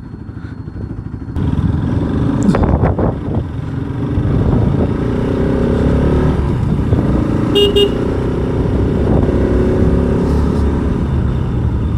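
Motorcycle running on the move, a steady low rumble that grows louder after about a second and a half. A short horn toot sounds about two-thirds of the way through.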